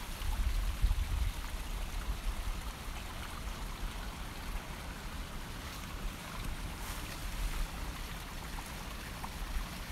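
Steady outdoor rushing noise, with wind rumbling on the microphone in the first couple of seconds.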